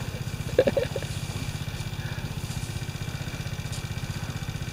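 A small engine idling steadily with a fast, even beat.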